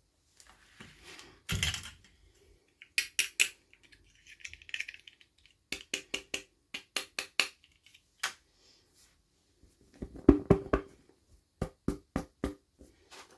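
Hands unboxing small plastic toy pieces and packaging: quick runs of sharp clicks and taps, with short rustles in between.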